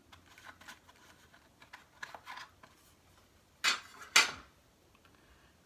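Small plastic parts and a servo being handled on a workbench: light clicks and rustling, then two sharp clicks about half a second apart a little past the middle.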